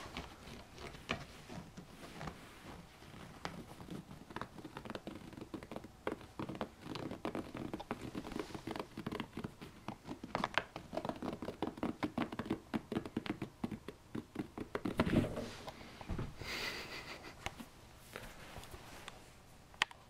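Fingernails scratching and picking at fabric couch upholstery in quick, irregular strokes, a lure noise for a kitten to pounce at, with a couple of louder scuffs about three quarters of the way through.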